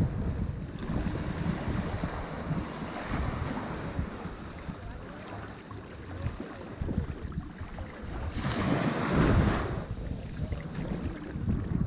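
Ocean surf washing on a shore, with one wave breaking loudly about eight seconds in. Wind buffets the microphone underneath as a low rumble.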